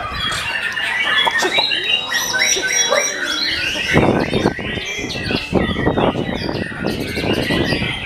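White-rumped shamas (murai batu) singing in competition, several birds' whistled and chattering phrases overlapping densely. A loud rush of noise comes in about four seconds in.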